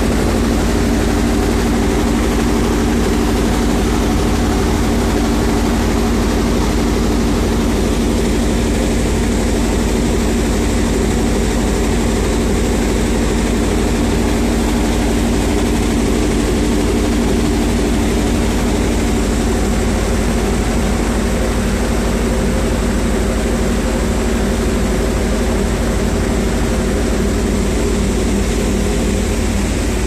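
A sand washing plant running steadily: a heavy machine hum with several steady tones over a constant rushing hiss, from the vibration motors shaking the sand dewatering screen.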